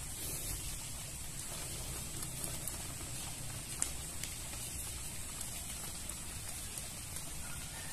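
Steady outdoor background noise: an even high hiss over a low rumble, with a couple of faint ticks about four seconds in.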